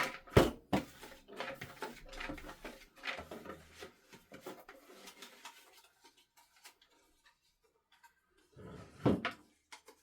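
Drum-backed background music fading out over the first few seconds, then near silence with a brief soft noise near the end.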